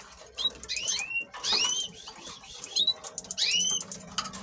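Canaries calling: a series of short chirps that rise and fall in pitch, about six of them spread over a few seconds, with a few faint clicks among them.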